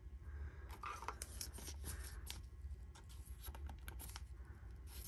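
Faint rustling and light clicks of Topps Chrome baseball cards being handled and set down, over a low steady hum.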